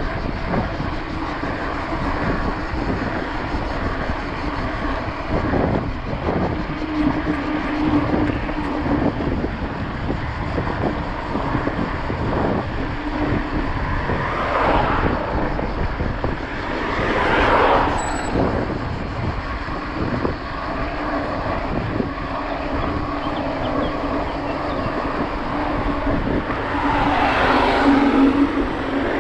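Steady wind and rolling noise of a mountain bike ridden on a road, with a low hum. Motor vehicles pass three times, each swelling up and fading away: twice around the middle and once near the end.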